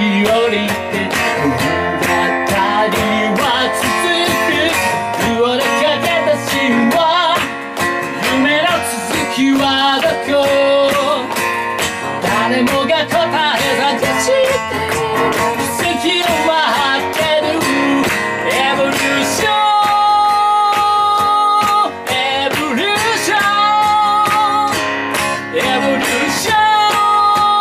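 A man singing while strumming an acoustic guitar, with long held notes in the second half.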